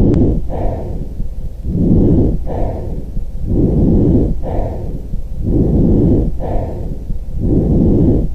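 Breath sounds heard through a stethoscope with rhonchi: coarse, low-pitched sounds on each breath in and out, typical of secretions in the larger airways. The breaths come in a steady rhythm of about one every two seconds, roughly four cycles.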